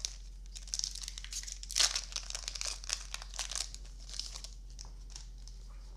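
Foil wrapper of a Magic: The Gathering Double Masters booster pack being torn open and crinkled by hand, in irregular crackly bursts that are loudest early and thin out after about four seconds.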